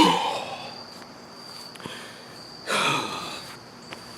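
A man's two heavy, breathy exhalations, each falling in pitch, one at the very start and one nearly three seconds in, over a steady high chirring of crickets.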